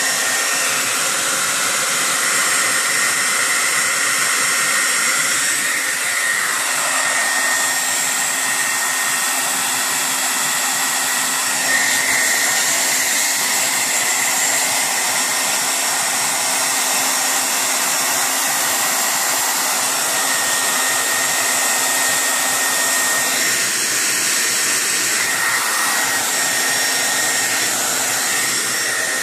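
Hair dryer running steadily: an even whooshing hiss with a high whine that does not change.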